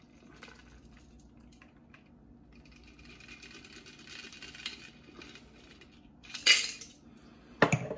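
A shaken cocktail being strained from a metal shaker tin through a cocktail strainer into a stemmed glass: a faint, steady trickle of liquid. Sharp clinks of metal and ice come from the shaker and strainer, one loud one about six and a half seconds in and two more near the end.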